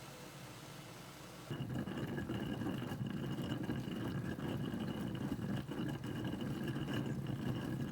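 An engine running steadily, starting abruptly about a second and a half in.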